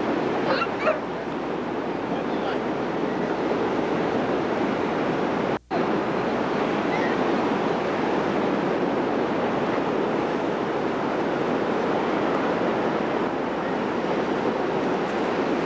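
Ocean surf breaking and washing onto a beach, a steady rushing noise. The sound cuts out for a split second about five and a half seconds in.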